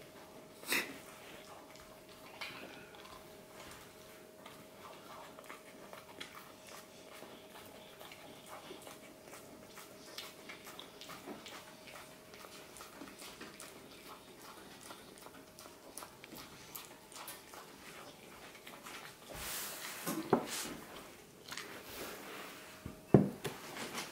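Staffordshire bull terrier puppy chewing bread and licking its lips, with many small wet clicks and smacks. Near the end come a few louder knocks as a metal food bowl is set on the table. A faint steady hum runs underneath.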